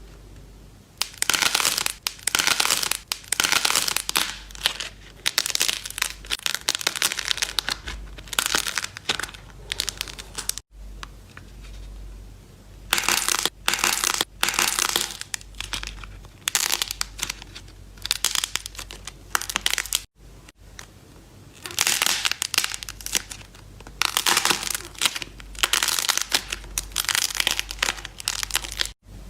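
Slime being squeezed and pressed by hand, giving dense crackling and popping in three stretches, each broken off by a sudden cut.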